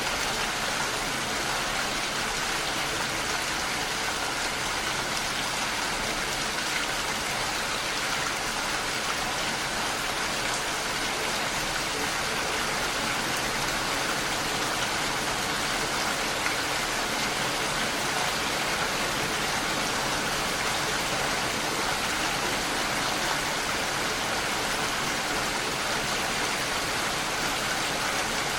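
Heavy rain falling steadily, an even hiss of many drops with no pauses or single events standing out.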